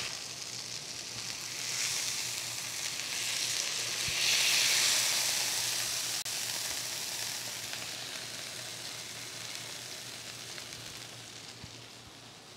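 Flank steak searing in hot canola oil in a pan: a steady sizzle that swells about four seconds in, then slowly fades as the steak is lifted out of the pan.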